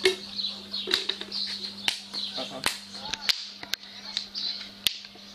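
Small birds chirping over and over, with sharp knocks or cracks at irregular intervals, roughly once a second, and a faint steady hum underneath.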